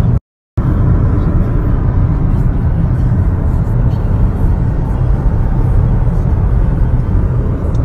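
Steady road and wind rumble inside a taxi's cabin at motorway speed, broken by a brief silence just after the start.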